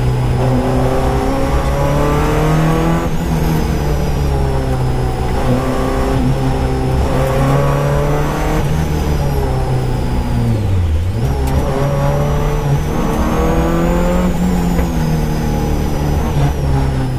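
Peugeot 205 GTi rally car's engine heard from inside the cabin, revving hard with its pitch climbing and dropping back again and again as it works through the gears. About eleven seconds in the pitch falls low, then climbs again.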